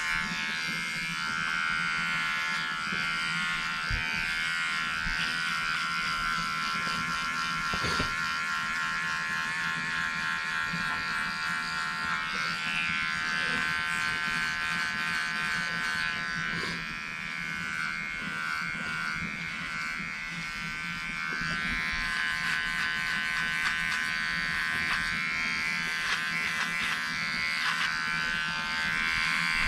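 Cheap cordless dog grooming clipper buzzing steadily as it trims beard and stubble on the face and neck.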